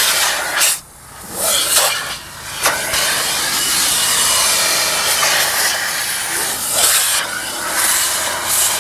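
Car wash vacuum hose sucking air as its nozzle is run along a pickup's door sill and floor mat: a steady rushing hiss that drops out briefly about a second in and again just after two seconds.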